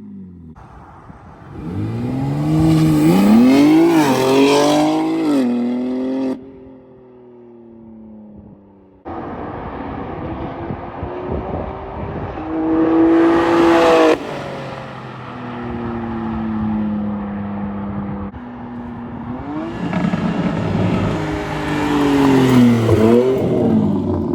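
BMW G80 M3 Competition's twin-turbo inline-six, fitted with high-flow downpipes and a straight mid pipe, revving and accelerating in several short clips joined by abrupt cuts. The exhaust note climbs and falls in pitch, loudest a few seconds in, about 13 seconds in and near the end.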